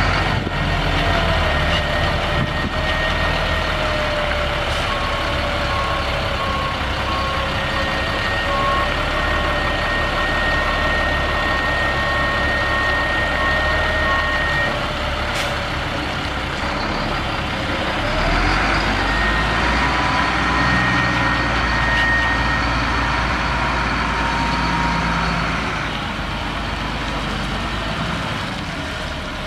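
2006 Peterbilt 335 crane truck's Caterpillar C7 inline-six diesel running as the truck drives slowly and turns, its pitch rising briefly past the middle. A high steady whine comes and goes, and a faint repeated beeping sounds in the first half.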